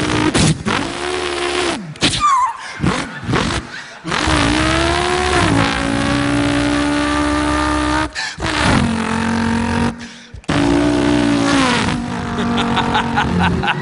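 A man's voice imitating a V8 race car engine. It starts with short choppy revs, then moves into long held engine notes that climb and level off like gear changes, broken twice by brief pauses.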